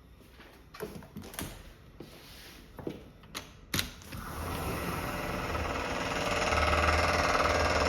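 Construction machinery running, a steady engine-like noise with a low hum that swells up from about four seconds in and then holds loud. Before it comes a handful of sharp clicks and knocks.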